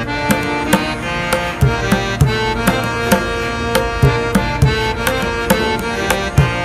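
Background music: hand drums strike a quick, steady rhythm under a sustained melody.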